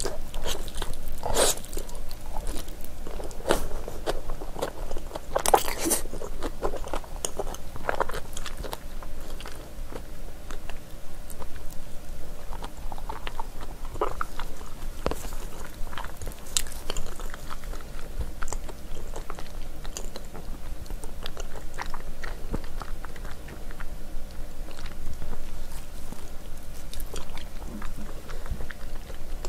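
Close-miked biting and chewing of chewy, gelatinous spicy braised ox trotter, with many sharp mouth clicks and smacks. The clicks come thickest in the first eight seconds and grow sparser after that.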